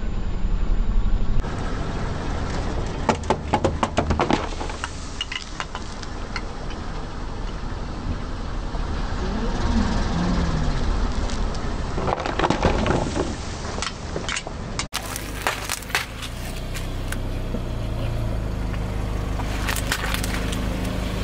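A car tyre rolling slowly over full aluminium soda cans, crushing them flat in several bursts of crackling and crunching, over the car engine's steady low rumble.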